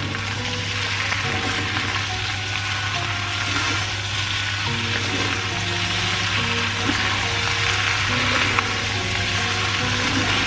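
Diced tofu and beef skin (kikil) stir-frying in an aluminium wok: a steady sizzle of hot oil, with a metal spatula turning and scraping the pieces.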